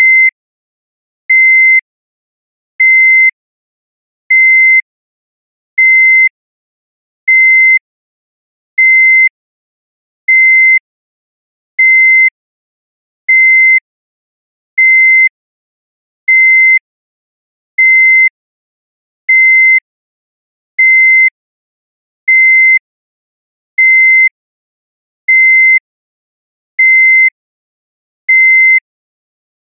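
Heart monitor beeping: a single high beep at one steady pitch about every one and a half seconds, each beep short, with silence between. The even rhythm is the monitor's pulse tone, one beep per detected heartbeat.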